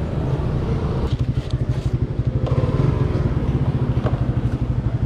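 A Yamaha Mio Aerox 155 scooter's single-cylinder engine idles with a fast, even pulse, which becomes more distinct about a second in.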